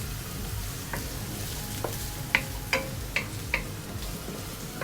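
Onion and garlic sautéing in oil in a pan, a low steady sizzle, while a utensil stirs them and knocks against the pan four times in quick succession a little past halfway.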